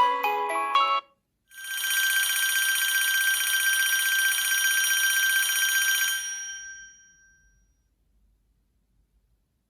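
HTC phone ringtones: the last notes of a chiming, mallet-like melody, then after a short gap a trilling electronic telephone-bell ring lasting about five seconds that fades away.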